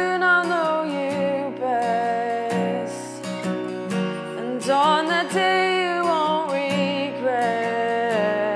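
A live acoustic song: a woman singing a slow melody in drawn-out phrases over acoustic guitar.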